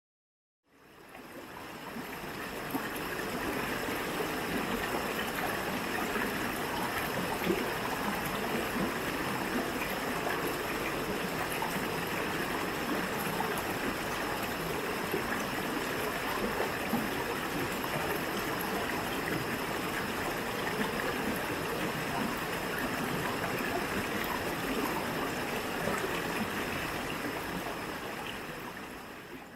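Waterfall: a steady rush of falling, splashing water. It fades in over the first few seconds and fades out near the end.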